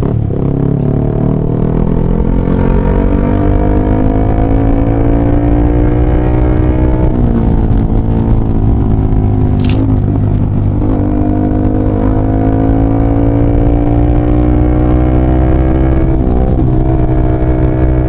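Yamaha R15 V3's 155 cc single-cylinder engine breathing through a LeoVince GP Corsa carbon short exhaust, accelerating hard through the gears. The engine note climbs steadily and drops sharply at an upshift about seven seconds in, then again about eleven seconds in, climbing again after each.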